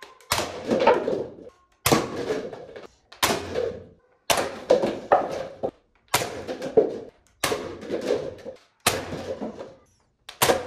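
Toy foam-dart blaster firing about eight times, roughly one shot every second and a half. Each shot is a sharp snap followed by about a second of rattling as paper cups are knocked over and fall.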